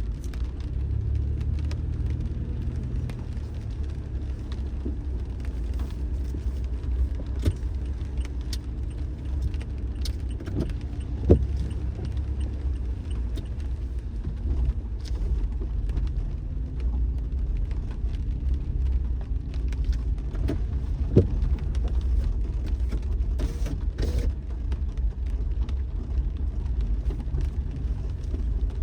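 Car driving: a steady low rumble of engine and road noise, with two sharp knocks, one about 11 seconds in and one about 21 seconds in.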